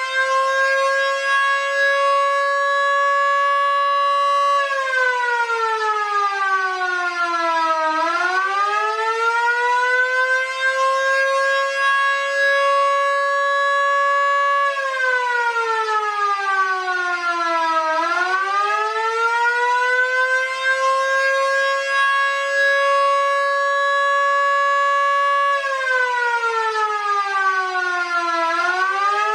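Vixen Horns VXS-1450 and mini Fedelcode Model 7 electric sirens sounding together on an attack cycle: a steady wail that winds down as the power is cut and winds back up when it returns, three times.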